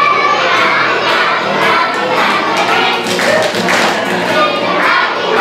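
A group of young children singing a song in English together over backing music, with scattered handclaps.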